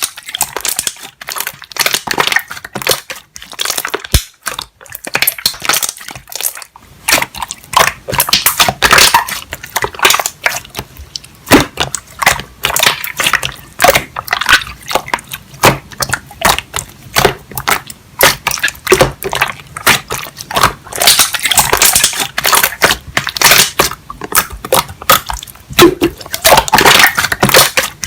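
Slime being squished and pressed by hand, making a dense, irregular run of small clicks and pops.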